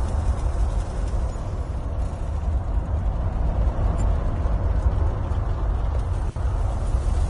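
Wind buffeting the camera microphone outdoors: a steady, uneven low rumble.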